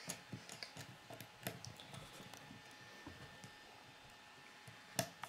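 Faint clicks and taps of plastic K'nex pieces being handled, as blue connectors are pushed onto the ends of a red rod, with two sharper snaps near the end.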